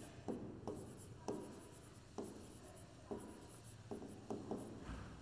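Stylus pen tapping and stroking on the screen of an interactive flat-panel display while handwriting: a string of light, irregular taps about one every half second.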